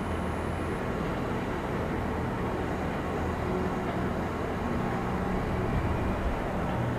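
Steady low mechanical rumble with a constant low hum and no distinct events.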